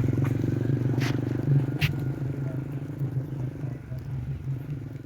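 Vehicle engine running steadily at low speed, with two sharp clicks about one and two seconds in.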